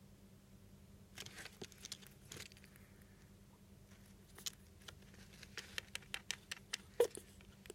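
Faint, irregular small clicks and soft rustles from a pet rat, in two loose runs, the second quicker, with the loudest click near the end.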